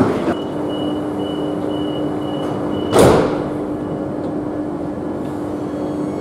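Metro train standing at the platform with a steady hum and a faint high tone; about three seconds in, a single short loud rush and thud, typical of the train's sliding doors shutting.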